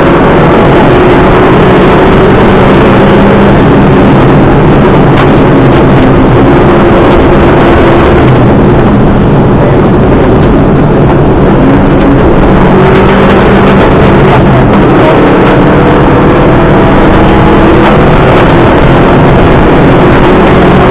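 Subaru Impreza rally car's flat-four engine driven hard on a special stage, its pitch rising and then dropping back again and again with the gear changes, over a continuous hiss of tyre and road noise. Very loud, near the recording's limit.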